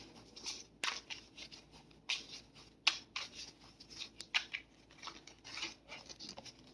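Tarot cards being handled and shuffled: a run of short, irregular papery swishes and flicks, several a second, with a few sharper snaps.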